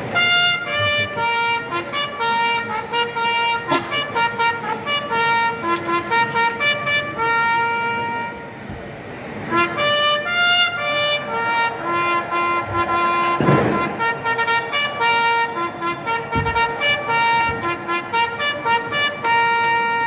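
Brass instruments playing a melody in held notes, with a short break about nine seconds in. A sharp bang sounds once about halfway through.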